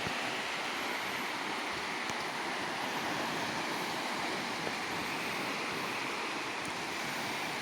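A river in flood, its high water rushing steadily.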